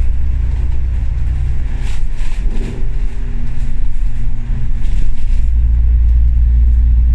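Engine drone and running noise heard inside a KMB double-decker bus (ATENU, an Alexander Dennis Enviro500) as it drives. Brief rattles or hisses come through around two seconds in and again around five. The engine's low rumble then grows louder and holds steady.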